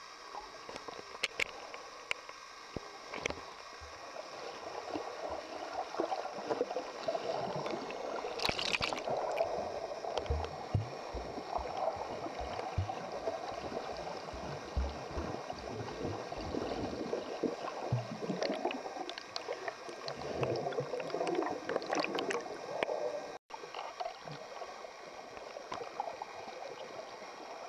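Muffled underwater water noise around the camera: a rushing, gurgling wash with scattered clicks and low thumps, cutting out for an instant about three-quarters of the way through.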